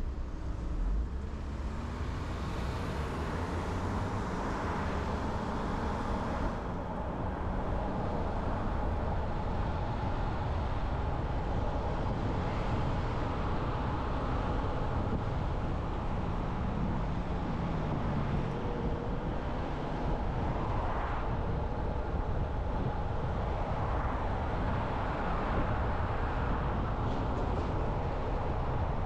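A car driving, with a steady rumble of road, tyre and engine noise that holds at a constant level.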